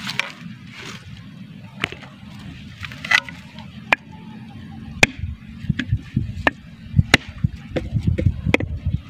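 A machete blade chopping into the fibrous husk of a whole coconut held in the hand. The sharp chops are sparse at first and come about two a second in the second half.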